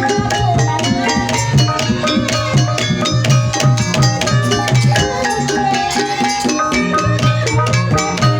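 Ebeg dance accompaniment music: traditional Javanese percussion ensemble playing a fast, steady rhythm, with drums driving a pulsing low beat and pitched percussion playing a repeating melody.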